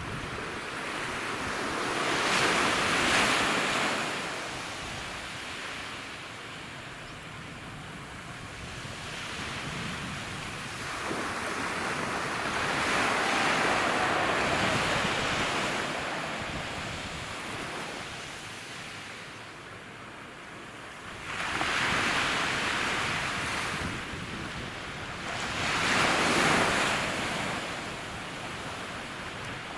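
Small sea waves breaking and washing up a sand beach, the surf swelling and ebbing four times.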